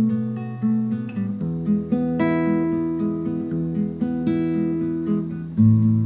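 Nylon-string classical guitar playing a plucked chord pattern, its notes ringing and fading between plucks; the chord changes about a second and a half in and again near the end.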